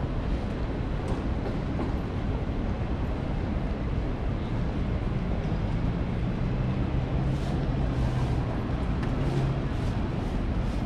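City street traffic rumble, with a passing vehicle's low engine hum coming in about halfway through.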